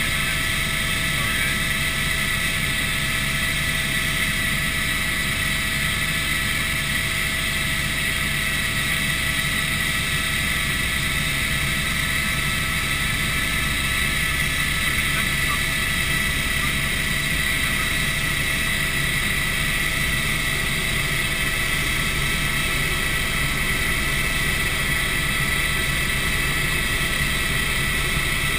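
Helicopter in flight heard from inside the cabin: a steady drone from the rotor and engine with a steady high whine over it.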